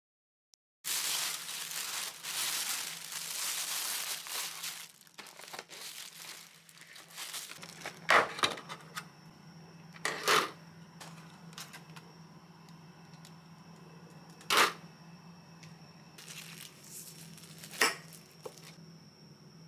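Plastic food packaging crinkling and tearing as a takeaway bento's wrap is opened, then four sharp plastic clacks spread over the rest as the lid and container are handled. A steady low hum sits underneath.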